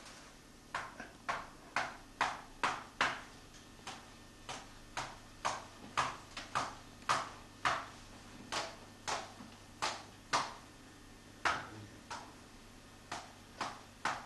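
Wicker shoots being woven into a lobster pot: a string of sharp clicks and knocks, roughly two a second, as the rods are worked in around the stakes.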